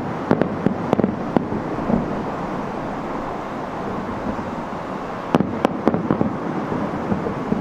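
Aerial firework shells bursting, heard from about 2.5 km away: a quick run of sharp bangs in the first second and a half, then another cluster about five and a half seconds in.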